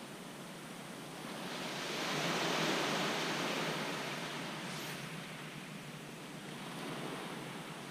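Surf breaking on a shingle beach: one wave swells up about two seconds in and washes back out, and another starts rising near the end.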